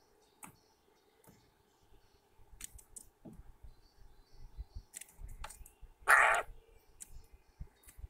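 Eurasian jay pecking and rummaging in a tray of sunflower seeds on a wooden feeder: scattered clicks and taps of beak on seed and wood, with soft knocks. One brief, louder rasping burst comes about six seconds in.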